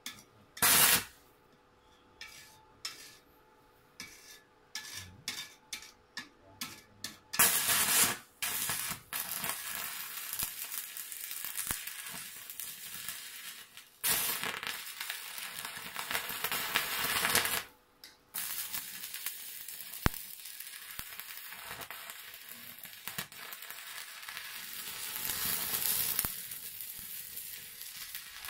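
Stick-welding arc from an inverter arc welder burning an electrode on galvanized and rusty steel. For the first seven seconds or so it comes in short separate crackles as the rod is scratched to strike the arc, then settles into a steady crackle as the bead is run, breaking off briefly twice.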